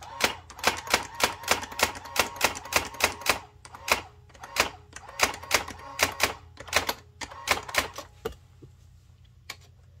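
Brother GX-6750 electronic daisy wheel typewriter printing character after character, about three sharp strikes a second over a steady low hum. The strikes stop about eight seconds in, with two more near the end.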